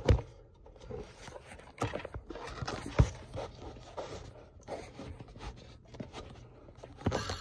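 Handling noise from a phone being set up and propped in place: scattered knocks and rubbing, with a sharp knock at the start and another about three seconds in.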